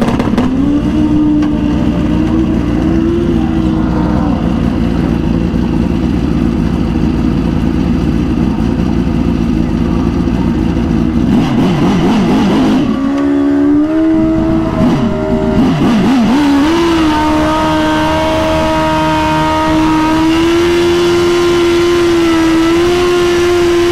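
Drag-racing motorcycle engines held at steady high revs, the pitch holding level and stepping up or down now and then. About halfway through, two engines run at slightly different pitches side by side for a few seconds before one steady note takes over again.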